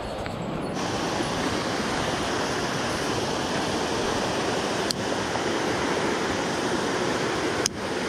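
Steady rushing of a fast, rain-swollen mountain stream, filling out to full strength about a second in. Two short clicks cut through it, one about five seconds in and one near the end.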